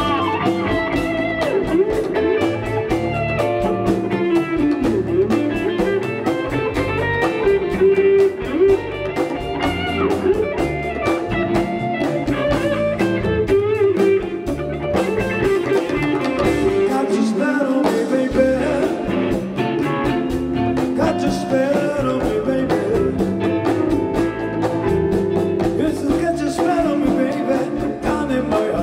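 Live rock band playing, with electric guitars over bass guitar and drums.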